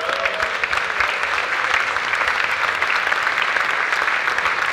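Large audience applauding steadily, a dense wash of many hands clapping.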